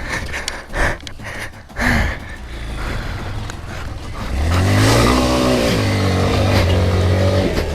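Honda CRF230L's single-cylinder engine running at low revs over rough ground, then revving up sharply about four and a half seconds in and holding the higher revs.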